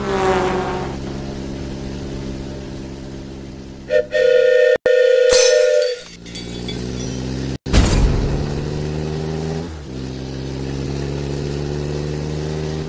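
Dubbed toy-car sound effects: a steady engine drone whose pitch falls at first and later rises twice. A loud horn blast runs for about two seconds, starting about four seconds in, and a sudden loud burst of noise comes just before eight seconds in.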